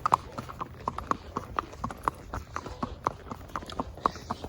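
Ridden horse's hooves clip-clopping, about four strikes a second in an uneven rhythm.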